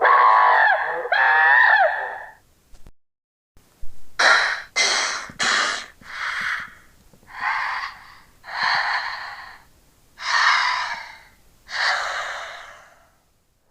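Breathy, hoarse creature calls made as sound effects for a carakiller: a warbling, wavering cry for about two seconds, then after a short pause eight separate hissing, gasp-like calls.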